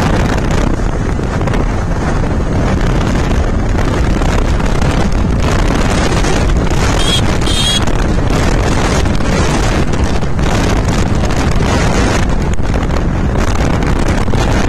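Wind rushing over the microphone at about 70–90 km/h, over the steady running of the Yamaha R15 V3's 155 cc single-cylinder engine and its tyres on the road. A brief high-pitched sound comes about seven seconds in.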